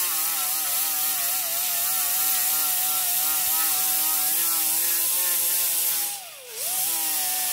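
Small rotary power tool spinning an abrasive grinding disc against a brake caliper piston, grinding off surface rust with a steady whine that wavers with the pressure. About six seconds in the motor slows sharply and then spins back up.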